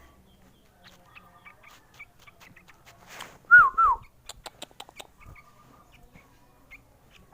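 A sooty-headed bulbul chick giving two short, loud calls about three and a half seconds in, each note bending up then down, followed by a quick run of clicks.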